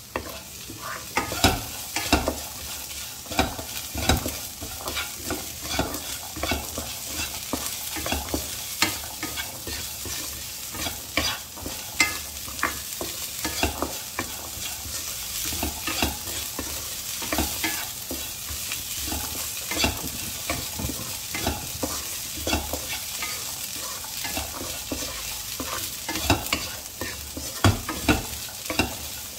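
Wooden spatula stirring cooked chickpeas and sliced onion in a nonstick pan, with irregular scraping and knocking strokes against the pan over a steady sizzle of frying in oil.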